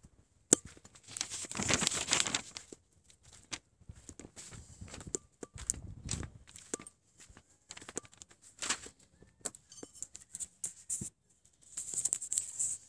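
Rustling, scraping and scattered knocks of a handheld phone being moved around and handled close to its microphone. A sharp knock about half a second in is the loudest sound.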